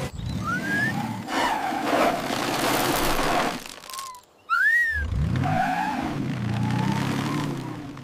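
Cartoon car sound effects: an engine revving and tyres skidding over dirt and gravel, with short rising whistle swoops, one near the start and one about halfway, just after a brief drop-out.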